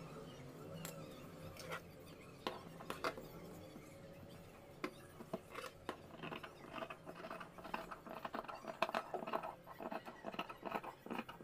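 Scissors cutting through cotton fabric: a dense, irregular run of crisp snips from about halfway on, after a few scattered clicks and taps of handling.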